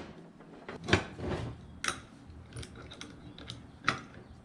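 Metal tool and ceiling fan parts being handled: a few irregular clinks and knocks, the sharpest about one, two and four seconds in, as a wrench is set to a part of the fan.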